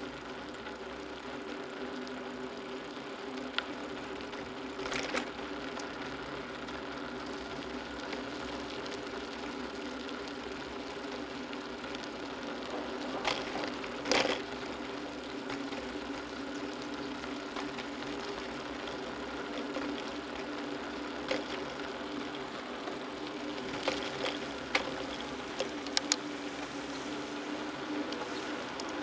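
Steady mechanical whir of a bicycle being ridden on asphalt, with a few sharp clicks and knocks scattered through it.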